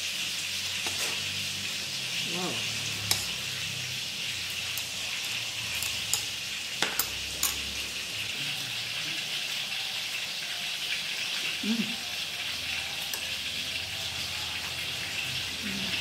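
Metal spoons clinking and scraping on ceramic plates a few times in the first half, as fried rice is served out, over a steady hiss.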